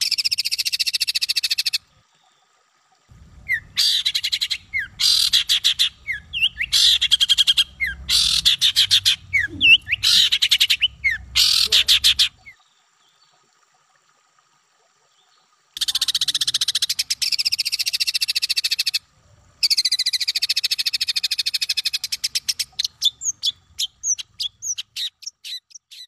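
Songbird calling in harsh, rapid buzzing chatters: several bursts of a few seconds with short gaps and one longer pause, ending in a run of separate quick chirps.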